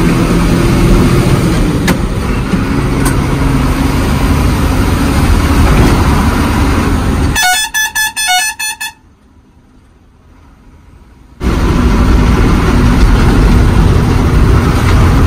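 Ashok Leyland truck's diesel engine and road noise running steadily inside the cab. About seven seconds in, the engine noise cuts out under a quick run of high, horn-like toots. A few seconds of almost no sound follow, then the engine noise returns.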